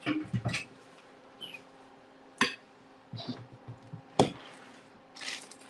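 Kitchen handling noise at a stone countertop: two sharp knocks, about two seconds apart, of utensils or cookware being set down, with shorter scraping and rustling in between, over a faint steady hum.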